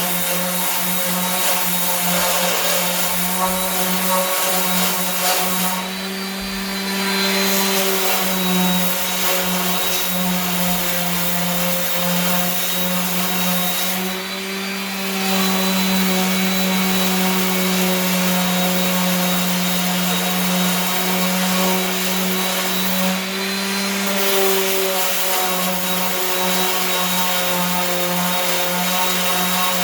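Power sander running steadily with 80-grit paper, sanding cured body filler off a steel truck fender. Its hum shifts briefly about six, fourteen and twenty-three seconds in.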